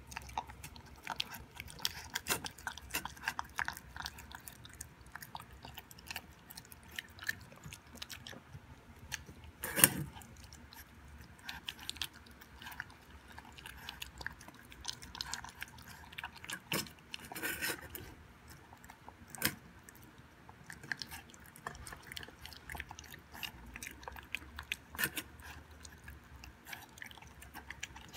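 Boston Terrier puppy chewing raw beef and vegetables from a stainless steel bowl, with many small clicks and a louder knock about ten seconds in.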